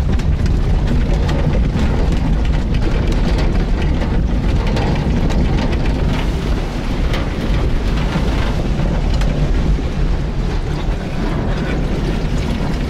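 An off-road vehicle's engine running while the vehicle sits in deep water, with water rushing and splashing around it: a steady heavy rumble under a hiss of water. The vehicle is stuck and water is coming in.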